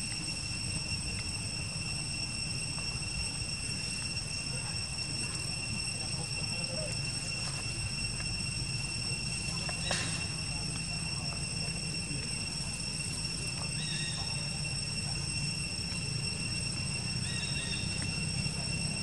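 Steady high-pitched drone of insects, one unbroken tone with fainter higher overtones, over a low rumble. A single sharp click about ten seconds in.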